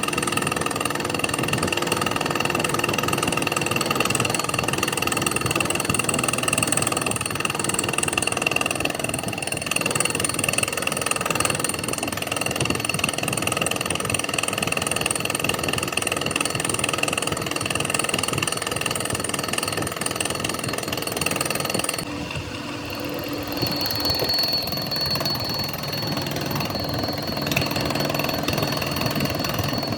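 Metalworking machinery running steadily, with a shrill steady whine over dense mechanical noise. About three quarters of the way through, the sound changes abruptly to a different machine tone.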